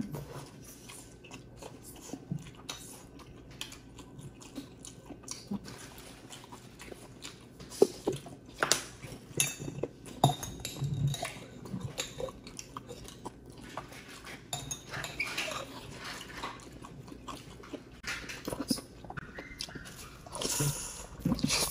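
Close-up eating sounds of people chewing and biting roast chicken, with many small scattered mouth clicks and soft crunches, growing louder near the end.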